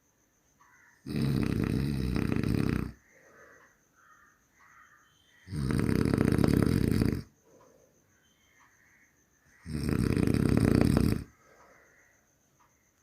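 A person snoring: three loud snores, each lasting about one and a half to two seconds, coming about every four seconds, with quiet gaps between.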